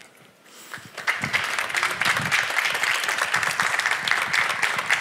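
Audience applauding, rising out of a brief hush about a second in into steady clapping from many hands.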